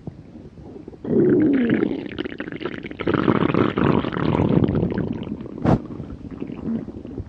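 Human stomach growling: after about a second of low sound, a loud gurgling rumble starts with a wavering low pitch, then runs on as a long gurgle that tails off toward the end. One short sharp click comes near the end.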